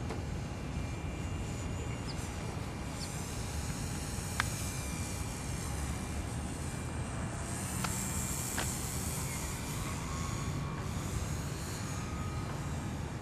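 Radio-controlled model aerobatic plane flying by, its motor and propeller making a high-pitched whine that rises and falls in pitch with throttle and distance and is loudest about eight seconds in, over a steady low rumble. A sharp click comes about four seconds in.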